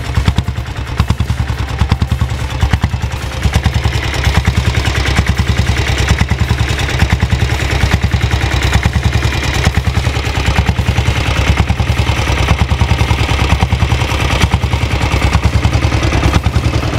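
Single-cylinder diesel motorcycle engine idling steadily, its exhaust giving rapid, even knocks.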